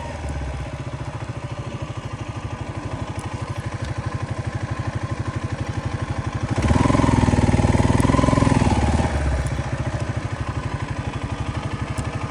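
Kawasaki KLR250's single-cylinder four-stroke engine running at low revs with evenly spaced pulses. A little past halfway it pulls louder and higher for about two and a half seconds, then drops back to a slow, idle-like beat.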